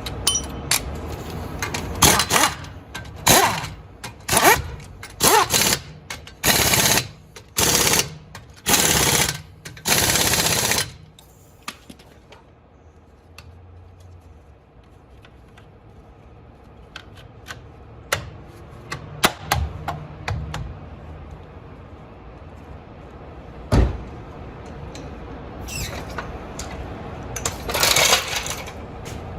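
Air impact wrench run in a quick series of short rattling bursts, about one a second, then stopping; a few more bursts come near the end, with scattered clicks and a single knock between.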